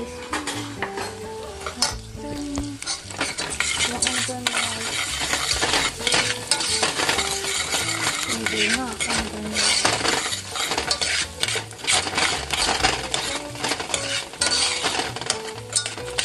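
Rice frying in hot oil in a pan, a steady sizzle, stirred with frequent clicks and scrapes of the utensil against the pan; the sizzle grows louder a few seconds in. This is the rice being toasted in oil before the broth goes in, as for Mexican rice.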